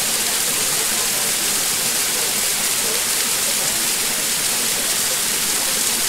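Small waterfall pouring down a bare rock face and splashing onto rocks at its base: a steady, even rush of water.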